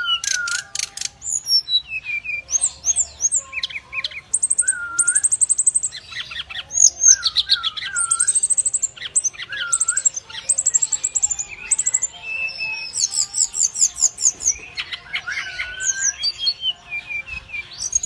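Brown-chested jungle flycatcher singing a long, varied song almost without pause: fast trills of rapidly repeated high notes alternating with short slurred, up-swept whistles.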